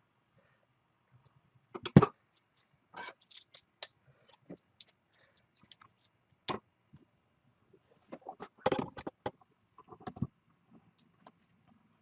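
Irregular knocks, clicks and light scrapes of small hard objects being handled. A sharp knock about two seconds in is the loudest, and a cluster of clattering comes about two-thirds of the way through.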